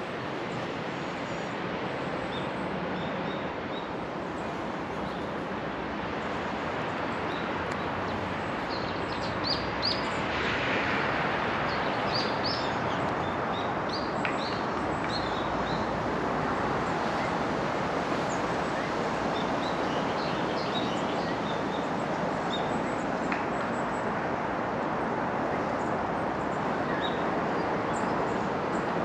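Steady outdoor ambience with scattered short, high chirps and squeaks from animals, thickest around the middle.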